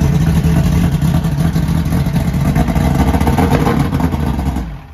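Old carbureted outboard motor on a bass boat, cowling off and run dry without cooling water, running steadily at a fast idle with a clattery note, then shut off abruptly just before the end.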